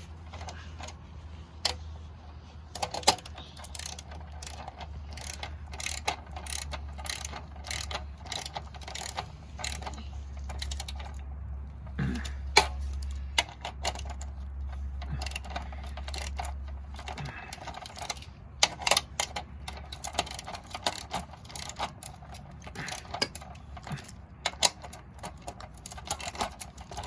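Irregular small metallic clicks and rattles of hands and tools working on an electric chainsaw's chain and bar as the chain tension is tightened. A low steady hum runs underneath and stops about seventeen seconds in.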